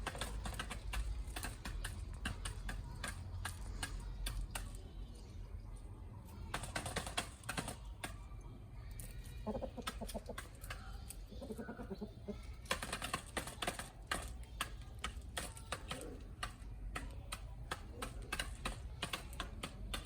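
Chickens pecking at feed: many quick, irregular beak taps, with a few short low clucks near the middle.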